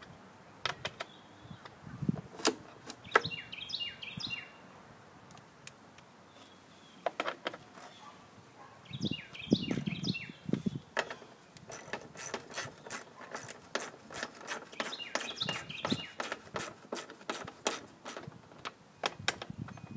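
Clicks and knocks of hands and a tool working on a Briggs & Stratton push-mower engine's plastic recoil starter shroud, becoming a quicker run of clicks about halfway through. A bird repeats the same short chirping phrase about every six seconds.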